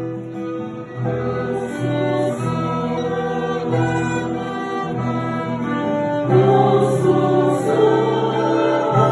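Church choir singing a hymn in held chords over instrumental accompaniment, the chords changing every second or so.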